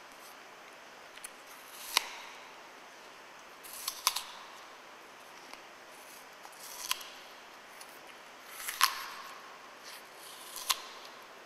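Crisp crunching bites into a Red Delicious apple: five short, sharp crunches at about two-second intervals.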